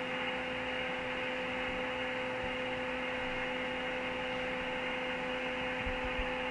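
Steady static hiss from a two-way radio on an open channel, with a steady hum tone running through it.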